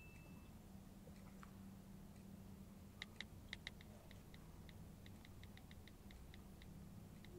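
Faint typing on a laptop keyboard: a few scattered key clicks about three seconds in, then a quicker run of light taps, over a low steady room hum.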